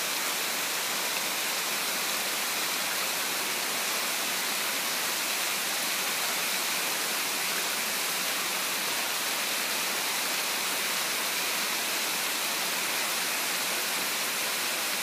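Heavy tropical rain falling steadily on dense foliage and palm fronds, a continuous even hiss.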